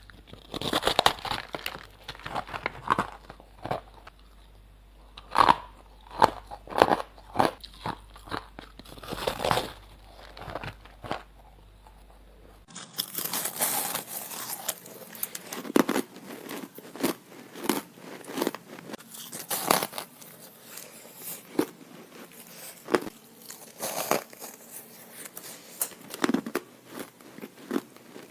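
Ice being bitten and crunched between the teeth, close to the microphone: a run of sharp, irregular crunches with chewing in between. About halfway through the sound changes to a brighter, crisper recording.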